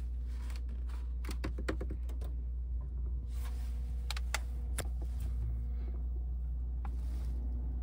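Scattered light clicks and taps from hands on the controls in a parked BMW M4 cabin, with the ignition on and the engine not running, over a steady low hum. The clicks come in a quick cluster about a second in, then singly a few times.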